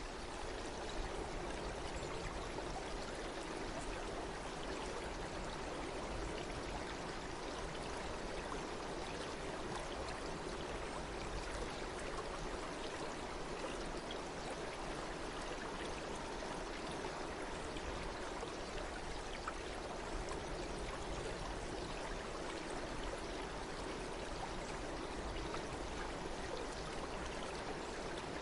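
Stream water running and splashing in a steady, unbroken rush.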